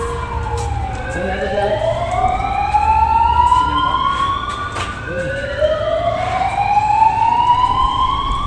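Sirens wailing, at least two out of step: each tone climbs slowly over several seconds and then falls away, over a low steady rumble.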